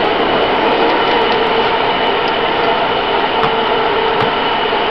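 Taipei Metro C321 electric train running through a tunnel: a steady rush and rumble of wheels on rail with a few faint steady tones running through it. Two light clicks come about three and a half and four seconds in.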